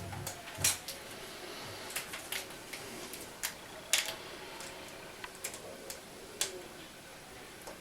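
Irregular small clicks and taps from hands handling plastic laptop screen parts during reassembly, a dozen or so scattered sharp ticks with a few louder knocks.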